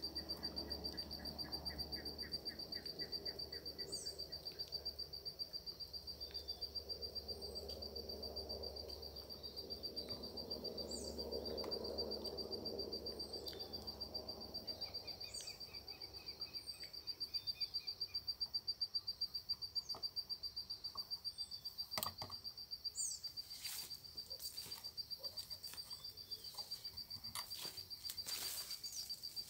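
Outdoor ambience: a steady, high insect trill with birds chirping, mostly repeated short downward-sliding calls and a couple of brief rapid trills. Over the last several seconds leaves brush and rustle against the moving camera, with a few knocks.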